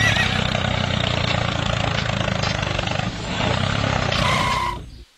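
Tractor engine running steadily, with a short steady high tone about four seconds in.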